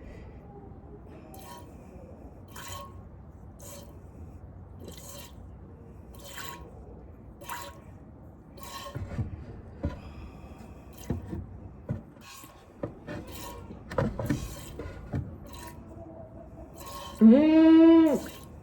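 Hand-milking a Nubian goat: streams of milk squirting into a pail in a slow, even rhythm, a little more than a second apart. Near the end the goat gives one loud bleat.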